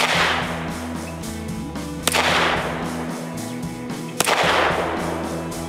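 Three shots from a Beretta 92FS 9mm pistol, about two seconds apart, each followed by a decaying echo. Plucked-string music plays steadily underneath.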